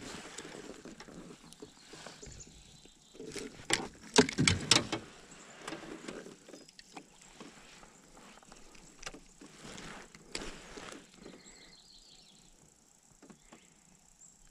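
Handling noise from casting and working a spinning rod and reel in a small boat: a quick cluster of sharp clicks and knocks about four seconds in, with softer rustles and swishes around it.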